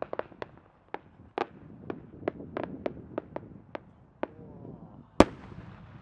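Fireworks: a quick irregular string of sharp pops and crackles, then about five seconds in a single loud bang as a large No. 10 (about 30 cm) aerial shell bursts overhead, followed by a rumbling echo.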